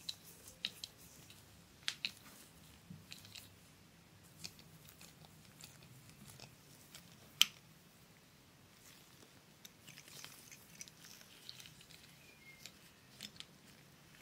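Small screwdriver turning a tiny screw into the base of a diecast toy truck, with faint scattered clicks and ticks of the metal and plastic parts being handled; one sharper click about seven seconds in.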